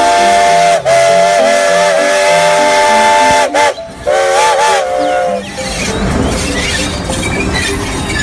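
Steam locomotive whistle blowing a chord of several tones: one long blast, then a shorter second blast about four seconds in. After that the whistle gives way to the hiss and rumble of the working locomotive.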